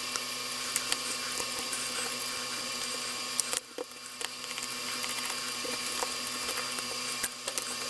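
Light clicks and taps of small metal parts on a Märklin E63 model locomotive chassis as the coupling rods are worked off by hand. Underneath runs a steady hum and hiss with a faint high whine, which is louder than the clicks.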